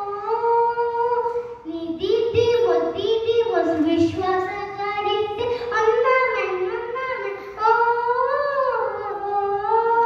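A young girl singing solo, a melody of held notes that glide from one pitch to the next, with a brief pause for breath about two seconds in.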